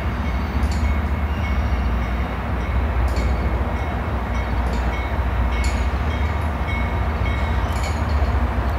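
Approaching diesel locomotive with a steady, heavy low engine rumble, with a few sharp short clicks every second or two.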